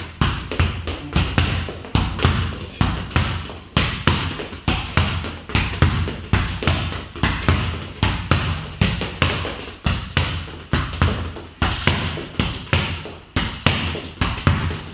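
Football struck with the inside of the foot against a wall and rebounding, again and again: a fast, regular run of hard thumps, about two to three a second.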